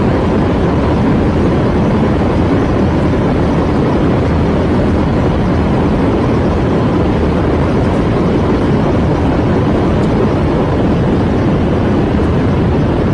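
Aircraft engine noise: a loud, steady, unbroken roar, heaviest in the low end, with a faint steady tone above it.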